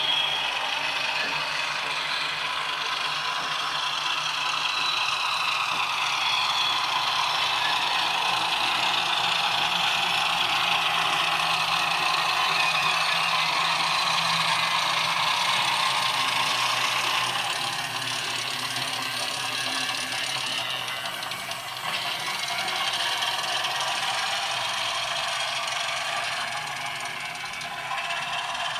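Brawa model DR class 100 (Kö II) shunting locomotive running, its ESU LokSound 4.0 decoder playing small-diesel engine sound through the model's tiny speaker, with the rattle of the model's wheels on the track. Steady and thin, with little bass, briefly quieter twice in the second half.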